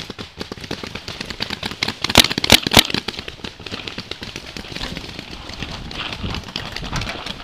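Paintball markers firing in quick, irregular pops, with three loud sharp cracks about two seconds in.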